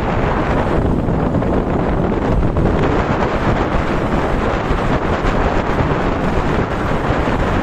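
Wind buffeting the microphone while riding along a road: a loud, steady rushing noise, heaviest in the low end, with no clear engine note.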